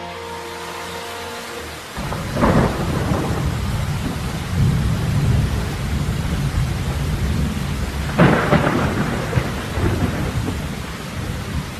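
Steady rain with rumbling thunder, as a soundtrack effect. Two louder thunder cracks stand out, one about two and a half seconds in and a bigger one around eight seconds in.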